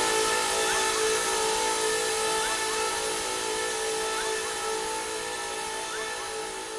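A droning soundtrack of several steady tones over a hiss, with short rising chirps about once a second, slowly fading out.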